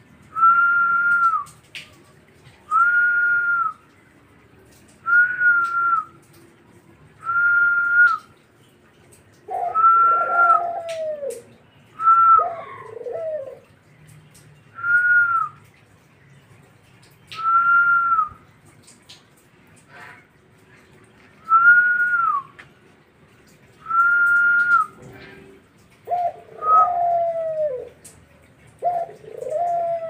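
A steady whistled note, about a second long and falling at its end, repeats roughly every two seconds. Between the whistles a caged collared dove coos twice in lower, arching phrases: once around a third of the way in and again near the end.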